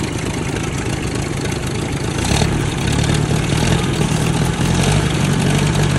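Tractor engines running steadily: the just-started 1956 Ford 800's four-cylinder idling quietly, mixed with the louder engine of a Kubota tractor. The combined engine sound grows somewhat louder about two and a half seconds in.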